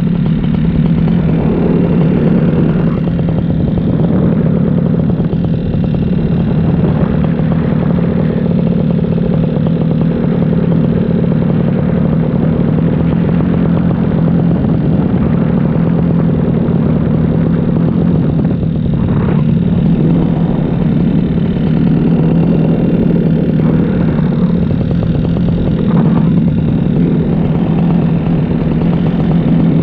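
Paramotor engine and propeller running steadily in flight, at an even, loud drone with a strong low hum.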